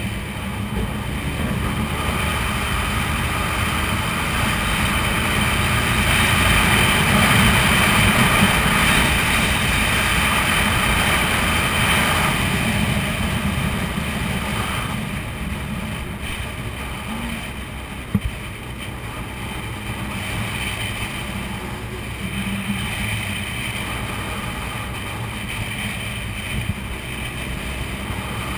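Suzuki Hayabusa's inline-four engine running under way, mixed with wind rushing over a helmet-mounted microphone. It grows louder through the first half, then eases off. There is one sharp click about two-thirds of the way through.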